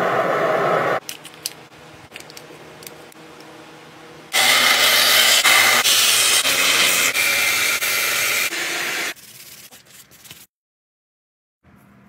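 A belt sander grinding a wooden axe handle against its belt, a steady loud hiss for about five seconds in the middle. It is preceded by a short loud rush of noise at the start and quieter scraping and clicks, and it stops abruptly near the end.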